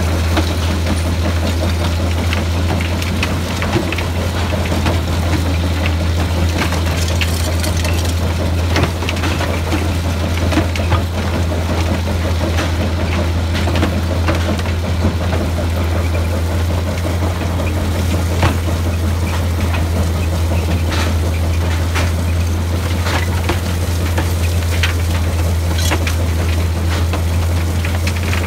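Crushed slag pours off the end of a running conveyor belt onto another belt, with a steady rattle of lumps and frequent sharp knocks as pieces strike the belt and chute. Under it runs a constant low machinery hum.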